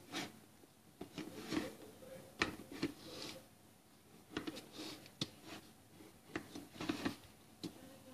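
Faint handling noise from a blender jar being held and turned in the hands: scattered light taps, clicks and rubs at an irregular pace.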